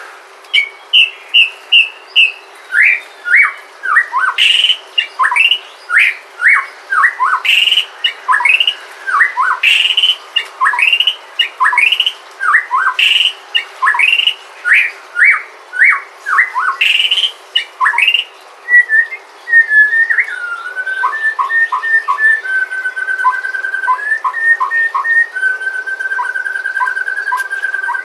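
Sumatran white-rumped shama (murai batu) singing. For the first two-thirds it gives a run of loud, clear whistled notes, many sliding sharply downward. It then switches to a softer, rapid trill held near one pitch.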